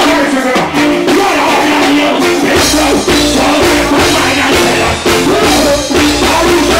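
Live reggae band playing through a PA: drum kit, electric guitar, keyboards and bass, with a man singing over it into a handheld microphone. The bass comes in heavier about two and a half seconds in.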